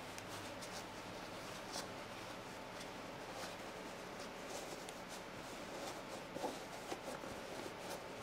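Faint rustling and scuffing of denim jeans and a rolled foam knee pad being handled and worked through the pad pocket's opening, with a few soft ticks over a steady low hiss.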